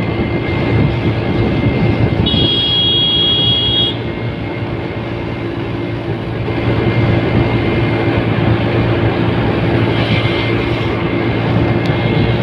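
A vehicle's engine runs steadily at road speed, with wind and road noise. About two seconds in, a high steady multi-tone beep sounds for nearly two seconds.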